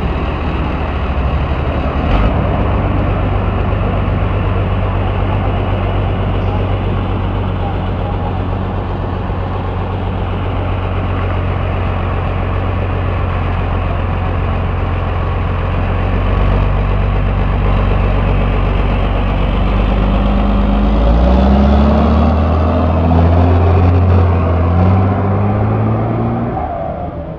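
Large road vehicle's engine idling close by with a steady low hum, then rising in pitch in several steps over the last few seconds as it revs up.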